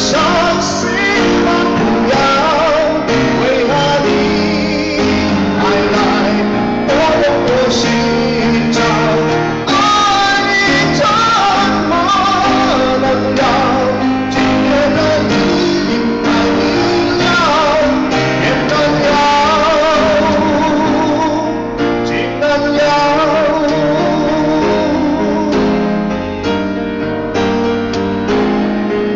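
A man singing a slow Chinese ballad with vibrato into a microphone while accompanying himself on a grand piano. Near the end his voice drops out and the piano carries on alone.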